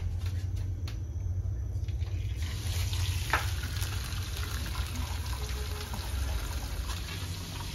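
A whole giant gourami going into a pan of hot oil to deep-fry. The oil starts sizzling suddenly about two and a half seconds in and keeps sizzling steadily, over a low steady rumble.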